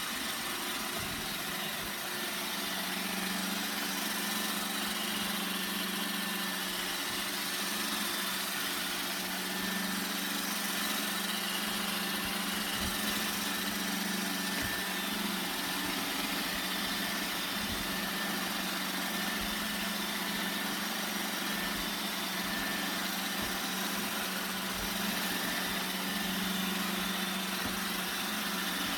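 Roomba 960 robot vacuum running: a steady motor hum with an even hiss from its suction fan and brushes.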